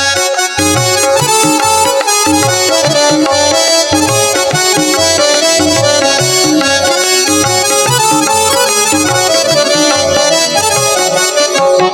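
Instrumental passage of Indian devotional music: a sustained reed melody, harmonium-like, over a steady low drum beat.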